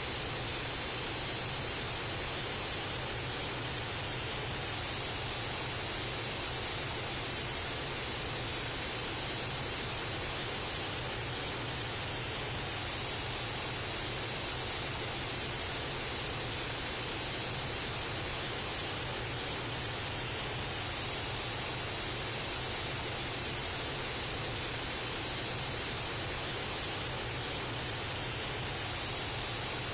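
Steady, even rushing noise that does not change, with a faint high tone running through it.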